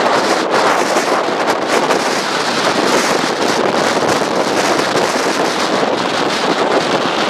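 Strong wind blowing across the microphone: a loud, steady rush with small gusts.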